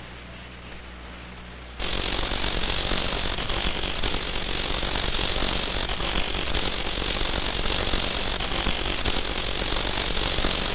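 Steady hiss over a low mains hum, which jumps abruptly louder about two seconds in and then holds even.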